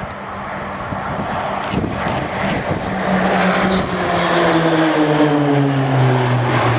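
Roulettes' Pilatus PC-9/A turboprop trainers flying past, their engine and propeller drone growing louder. From about three seconds in the pitch drops steadily as the aircraft go by.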